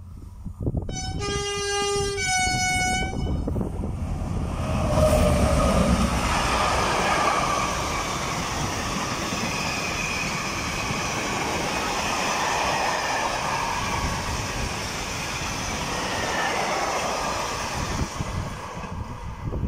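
Freight train sounding a two-tone horn, a low note then a higher one, for about two seconds. The train then passes close by, loudest a few seconds later as its front goes past, followed by the long steady rolling noise of tank wagons on the rails, which fades near the end.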